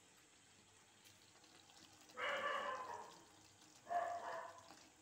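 A dog barks twice, each bark drawn out and falling in pitch, about two seconds in and again near the end.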